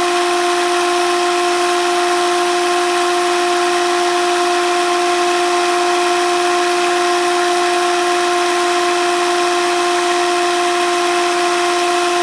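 Cordless drill running at a steady speed with a constant, even-pitched whine, spinning a small permanent-magnet motor from a citrus juicer that is being driven as a generator.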